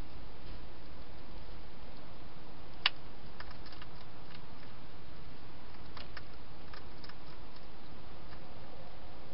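A hedgehog feeding at a dish inside a plastic feeding box: one sharp click about three seconds in, then scattered fainter clicks, over a steady hiss.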